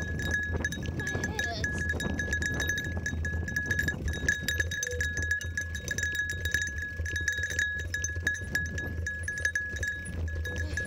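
Mountain bike rolling along a dirt trail: a steady low rumble with constant rattling and clicking from the bike over the bumps, and a steady high ringing tone throughout.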